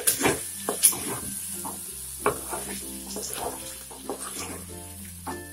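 A wooden spatula stirs and scrapes chicken pepper fry in a metal kadai, knocking against the pan a few times over a steady sizzle as the masala cooks down dry.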